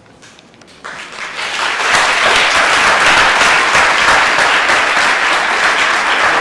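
Congregation applauding: the clapping starts about a second in, swells, and then holds loud and steady.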